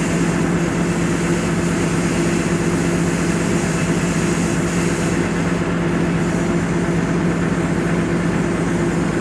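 Excavator's diesel engine running steadily: a loud, even hum with a low, regular throb underneath.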